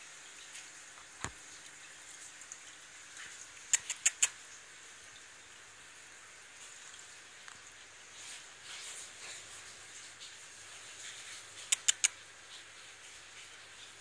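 Pet parrots, a green-cheeked conure and a Quaker parrot, scrabbling on the metal rim of a fish tank with faint scratching and shuffling. Twice there is a quick run of four sharp taps, about eight seconds apart.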